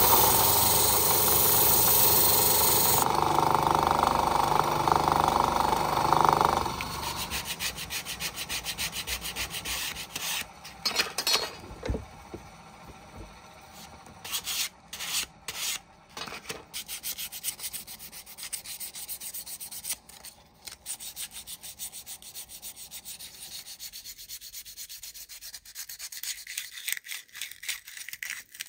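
A small electric disc sander runs with a wooden clothespin half held against its sanding disc, then stops about six seconds in. After that comes hand sanding: quick, irregular strokes of folded sandpaper rubbing over the wood.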